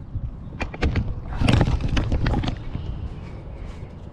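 Handling noise from the camera being picked up and moved about on the kayak: a couple of sharp knocks, then a cluster of knocks and rubbing, with low wind rumble on the microphone.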